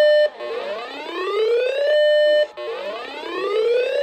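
Electronic alert siren: a buzzy tone that rises in pitch for about a second and a half, holds briefly, then cuts off. It repeats about every two seconds, twice in this stretch.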